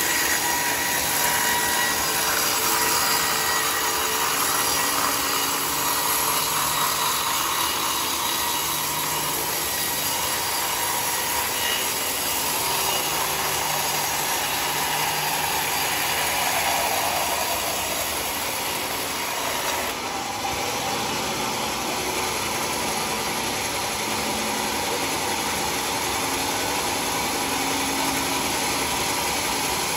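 A band sawmill's blade cuts lengthwise through a large log with red heartwood. The machine runs with a steady sawing noise that shifts slightly in character about two-thirds of the way through.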